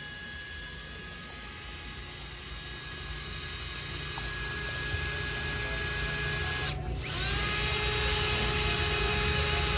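Cordless drill running steadily, boring an anchor hole into the floor to bolt down an ATM. It gets gradually louder as the bit bites, stops briefly about seven seconds in, then whines back up to speed.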